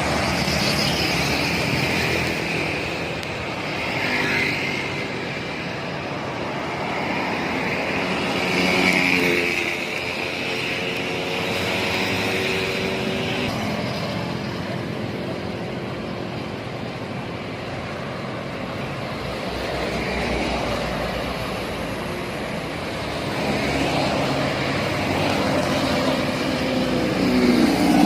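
Steady highway traffic: engines and tyres of cars, trucks and buses passing close by one after another, the sound swelling as each goes past, most loudly about nine seconds in and near the end.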